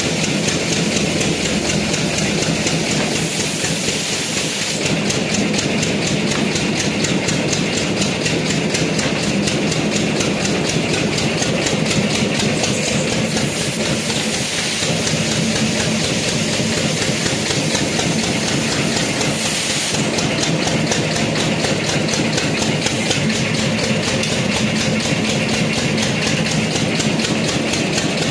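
Machinery running steadily with a fast, even pulsing and a low hum, with no let-up.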